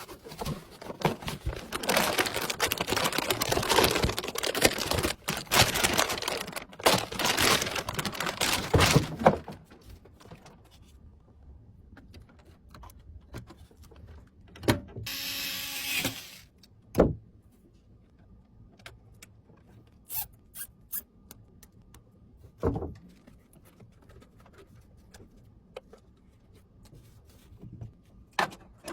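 PC parts being handled and fitted by hand: about nine seconds of rubbing and rustling with many small clicks, then scattered clicks and light knocks, with a short scrape about halfway.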